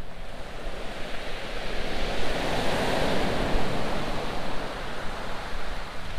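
Sea surf on a shingle beach: a wave breaks and washes up, the rushing noise swelling to a peak a few seconds in and then fading away.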